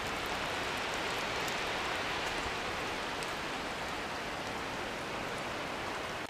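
Steady hiss of falling rain, with a few faint scattered drop ticks.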